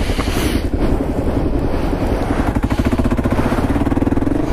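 Kawasaki KLR650's single-cylinder four-stroke engine running under throttle as the bike slithers through deep mud ruts, the rear tyre slipping for grip. The engine note comes through steadier and clearer in the last couple of seconds as the bike gets going; the rider puts the poor grip down to tyres not aggressive enough or worn down too much for this.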